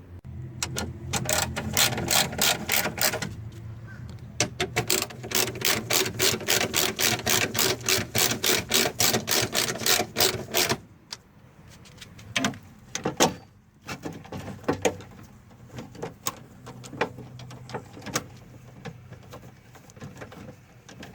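Ratchet wrench clicking quickly and evenly, about six clicks a second, as nuts are run down to clamp the window glass to the regulator: a short run about a second in, then a longer run of about six seconds from about four seconds in. After that come scattered single clicks and knocks, the loudest about thirteen seconds in.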